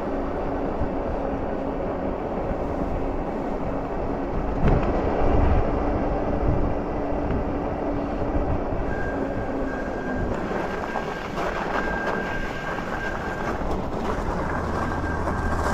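Wind buffeting the microphone and tyre noise from an e-bike running downhill, with a low steady hum through the first half. From about nine seconds in, a high thin squeal comes and goes as the bike slows and pulls off the road onto the gravel shoulder.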